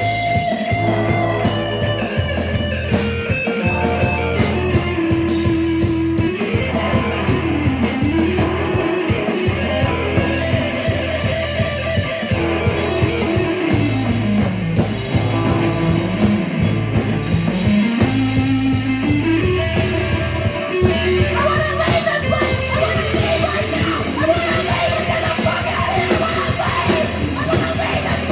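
Live rock band playing loud: electric guitar, bass and drums, with a melody line that slides down and back up several times in the middle.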